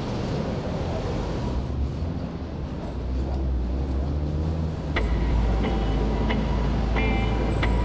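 City street ambience of traffic hum. About five seconds in, an electronic music track comes in with a deep steady bass drone and a chiming note that repeats evenly, a little faster than once a second.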